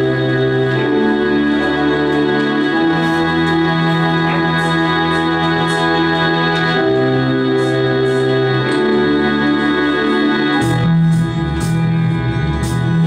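A live classroom rock band plays sustained keyboard chords that change every couple of seconds. About eleven seconds in, electronic drum hits and a lower guitar line come in.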